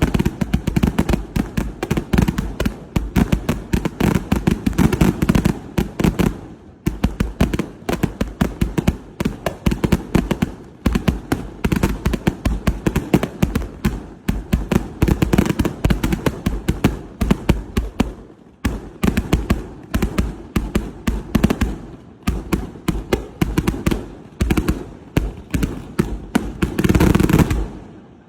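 Fireworks finale: a rapid, continuous barrage of bangs and crackling, dipping briefly about six seconds in, building to a dense final burst near the end, then stopping abruptly.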